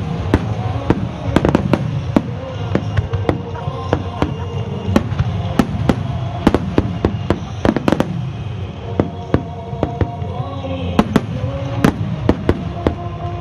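Aerial fireworks bursting in quick succession: many sharp bangs and crackles, over steady music with held notes.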